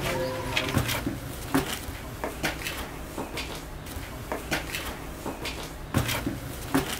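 Footsteps climbing stone spiral stairs: irregular knocks and shoe scuffs, one or two a second.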